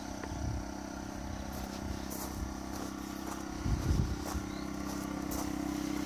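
Outwell Windstorm 12-volt electric tent pump running with a steady drone, still inflating the air tent's beams toward its set pressure before it switches itself off. A brief low rumble of wind on the microphone comes about four seconds in.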